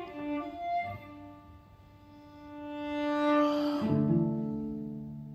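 Violin and cellos playing live, bowed. A long held note swells louder, then lower cello notes come in just before four seconds in and are held as the sound fades.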